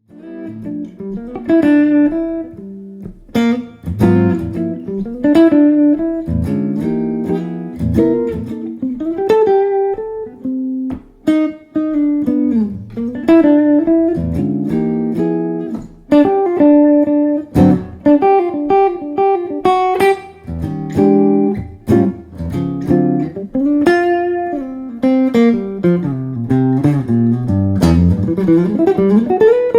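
Lombardozzi 13.5-inch small-body archtop guitar with Kent Armstrong '57 humbucker pickups, played solo in a jazz style: plucked chords and single-note lines that ring between attacks.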